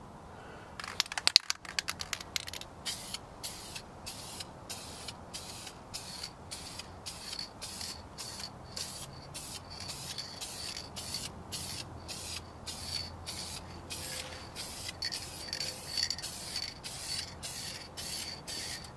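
Aerosol spray paint can spraying in short, repeated bursts, about two hisses a second. A few sharp rattles come about a second in.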